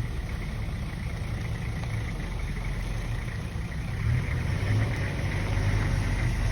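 Vehicle engine idling with a steady low hum, growing a little louder in the second half.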